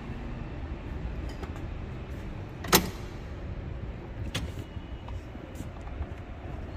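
A Ford car door shutting with one sharp clunk about three seconds in, over a steady low rumble. A lighter click follows about a second and a half later.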